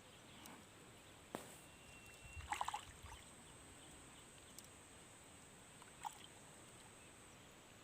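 Near silence: faint outdoor ambience, broken by a single sharp click about 1.4 s in and a brief faint rustle-like sound about two and a half seconds in.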